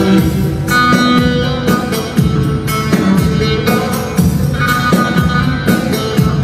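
Amplified bağlama (saz) playing a plucked melody through a PA, over a steady rhythmic beat.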